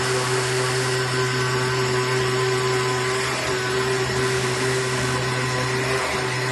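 AOKE DCZ70 flatbed CNC cutting machine running as its tool head travels over a board: a steady whirring hum with a constant low drone and a steady mid-pitched tone.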